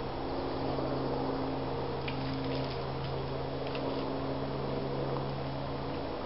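A steady low hum with a few faint ticks and rustles.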